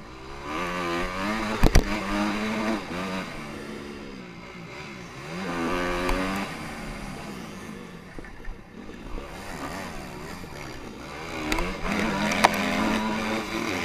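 Honda CRF250R single-cylinder four-stroke dirt bike engine heard from the bike itself, revving up hard three times with quieter off-throttle lulls in between. A sharp knock comes at the top of the first surge, just under two seconds in.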